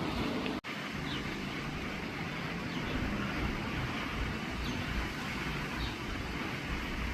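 Steady outdoor background rumble with a few faint, short, high chirps scattered through it. The sound drops out for an instant about half a second in.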